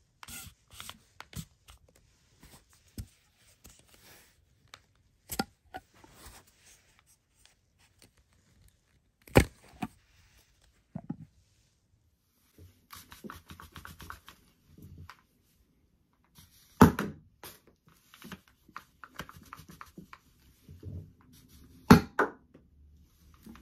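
Plastic clicks, scrapes and knocks of a toy air-pump foam-ball blaster being handled and loaded, broken by a few loud sharp pops; the last of them, near the end, is the blaster firing a foam ball.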